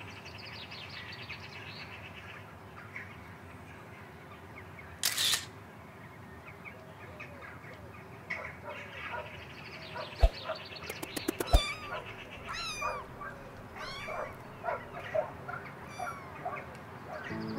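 A cat's short meows and chirps, several separate calls, loudest in the second half. A loud brief noise burst comes about five seconds in, and a few sharp clicks come shortly before the second run of calls.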